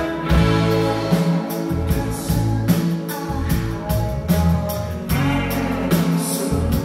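Live rock band playing a song: drum kit hitting steadily under bass and guitar.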